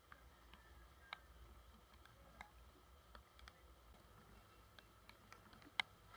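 Near silence broken by faint, scattered clicks at irregular intervals, the sharpest one near the end.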